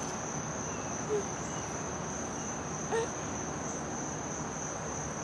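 Crickets trilling in one steady, unbroken high-pitched tone over a faint outdoor background hiss.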